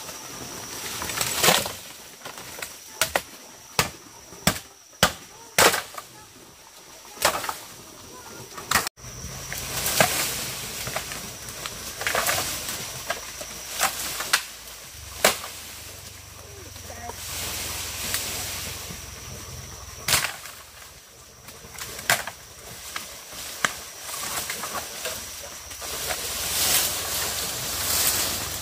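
Irregular sharp knocks and scrapes, a few each second in bursts, over a faint steady high-pitched hum.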